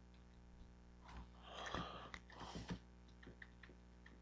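Near silence: a faint steady electrical hum, with a few faint soft noises and tiny clicks about a second to three seconds in.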